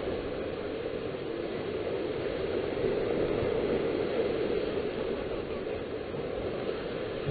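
Steady rushing noise of small surf breaking on a beach, with wind, heard through a webcam's low-quality, band-limited microphone.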